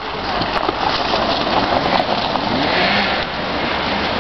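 Hyundai Santa Fe SUV driving off-road down a dirt trail, its engine running under a steady noisy hiss, with a brief rise in engine pitch about two and a half seconds in.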